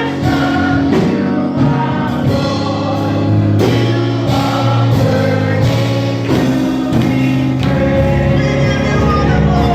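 Church choir singing gospel music with instrumental accompaniment and a steady beat.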